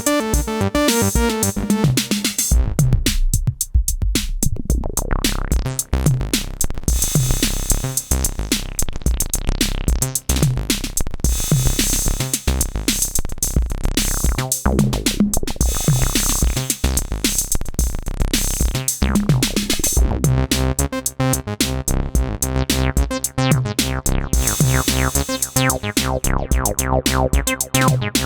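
Acid bass line played on an Elektron synthesizer over a drum machine beat. The pattern thins out about two seconds in and fills out again with a denser, busier bass about twenty seconds in.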